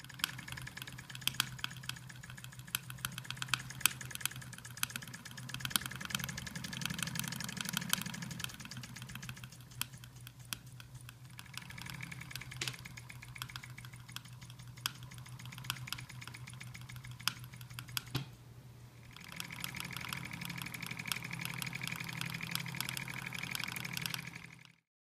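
1938 Willcox & Gibbs motorized chainstitch sewing machine running: a steady motor hum under fast, even clicking of the needle mechanism. It runs faster and louder at first, slower through the middle with a brief near-stop, then speeds up again.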